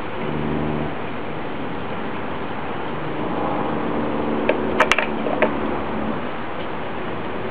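A handful of light plastic clicks and knocks, about five in quick succession near the middle, as PVC pipe fittings and the cement dauber are handled, over a steady background hum.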